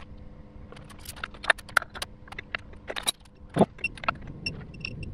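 Metal tools and parts clinking and clattering as they are handled, a run of irregular sharp clicks and knocks with a light metallic ringing in the second half.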